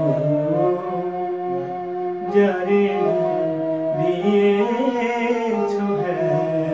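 A man singing long, gliding held notes to his own electronic keyboard accompaniment.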